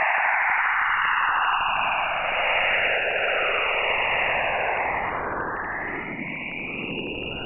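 Space sounds, radio or plasma-wave data turned into audio: a dense hiss with bands of noise that slowly sweep up and down.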